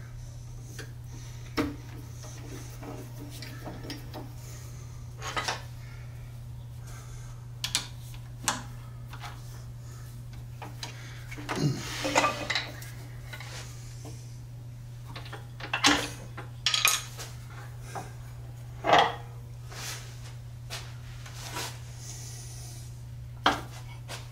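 Scattered metal clinks and clunks as a chuck holding a resin blank is handled and unscrewed from a stopped wood lathe's headstock spindle, over a steady low hum.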